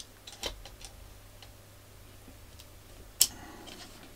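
Small plastic clicks and taps from a cassette shell and its tape spools being handled, with a louder click about three seconds in followed by a brief scratchy rustle.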